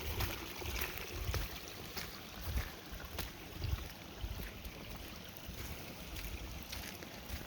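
Wind buffeting the microphone in irregular low rumbling gusts, over a steady outdoor hiss with a few faint clicks.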